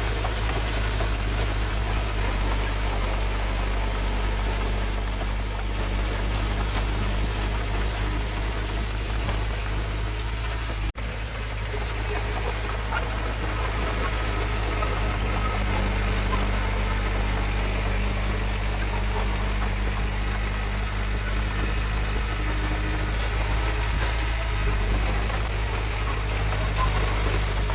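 Diesel engine of heavy earthmoving machinery running steadily, with a brief break in the sound about eleven seconds in.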